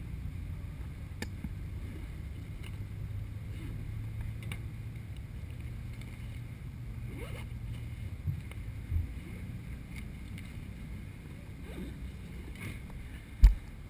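Low steady rumble of wind and handling noise on a body-worn camera's microphone, with a few faint clicks as gear on the table is handled and a sharp thump just before the end.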